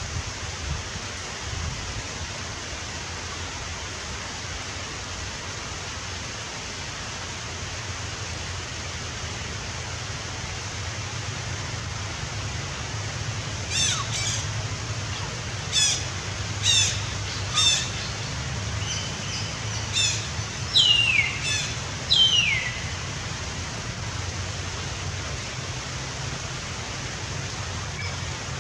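A bird calling over a steady hiss: a series of short, sharp, high calls about a second apart, starting about halfway through and ending in two calls that fall steeply in pitch.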